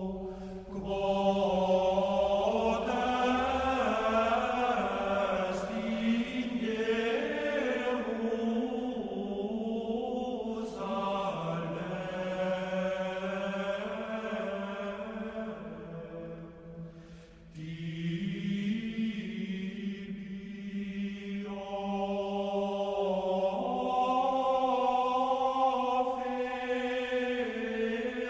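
Sung Latin chant: slow, held notes moving in steps from phrase to phrase, with a brief break about two-thirds of the way through.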